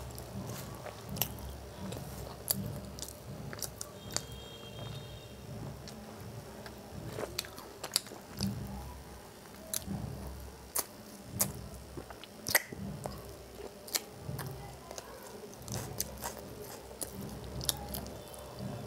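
A person chewing a mouthful of aloo tikki burger close to a clip-on microphone, with sharp clicks scattered throughout.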